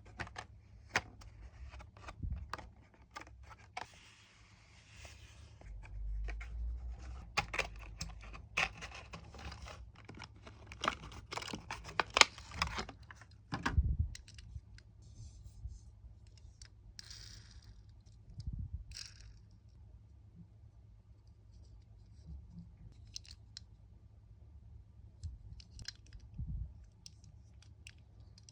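Hot Wheels blister-card packaging being opened by hand: plastic and cardboard crackling, clicking, scraping and tearing. It is busy through about the first half, then sparser clicks and a few soft thumps.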